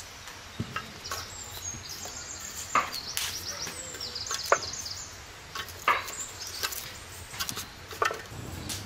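Scattered sharp knocks and snaps of sticks being pushed and dropped into a small wood fire burning inside a steel car wheel rim.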